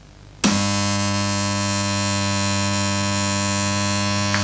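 A pair of concentric AC electromagnet coils switched on about half a second in, giving a loud, steady mains hum with a buzz. A short faint click near the end.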